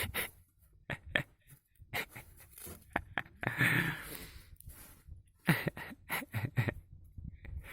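A puppy and a kitten scuffling in play, with quick taps and clicks of paws and claws, a few soft thumps and a breathy puff of panting partway through.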